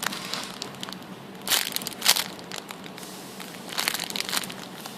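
Crinkling and crushing noises as a foam squishy toy is handled and squeezed, in short bursts about a second and a half in, two seconds in, and around four seconds in.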